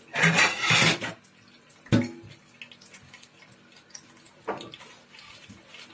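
Kitchen sounds: a loud rush of noise lasting about a second, a sharp knock about two seconds in, and a softer knock later.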